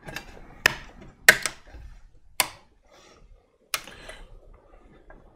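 Sharp clicks and light rattles of crimped spade connectors and wires being handled and pushed onto terminals inside a 3D printer's metal control box. About five separate clicks, the loudest two close together just over a second in.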